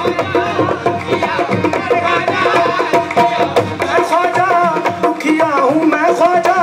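Live qawwali music: a harmonium holding steady notes under a wavering, ornamented sung line, with hand drums keeping a busy rhythm.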